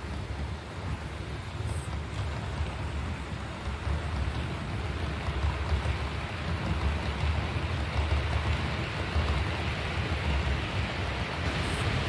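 H0-scale model train running along the track: a steady rolling rustle of wheels on the rails over a low hum, growing gradually louder.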